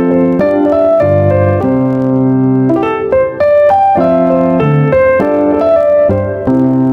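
Background piano music: a light melody over bass notes.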